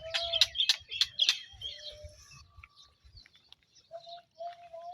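Hen pecking at feed: a quick run of about five sharp taps in the first second and a half, with birds chirping.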